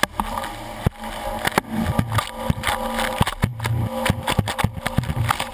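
Boat hull running through choppy water with spray and water striking a camera mounted at the waterline: a rapid, irregular run of splashes and sharp knocks over the steady hum of the boat's motor.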